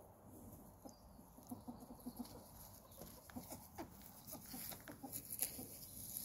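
A ferret dooking, a soft rapid clucking, as it scampers and digs through grass and dry leaves, with leaf crackle that grows louder past the middle.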